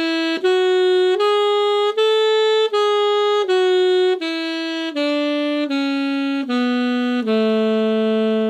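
Alto saxophone playing a major scale one even note at a time, written Gb major for the E-flat instrument: it climbs a few steps to the top of the scale, then steps back down and ends on a long held low tonic.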